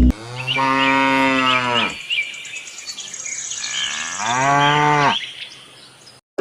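A cow mooing twice: two long calls a couple of seconds apart. The first drops in pitch at its end; the second rises and then falls.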